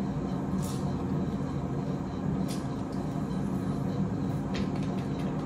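Steady low hum of a motor or fan running in the room, with a few faint light clicks.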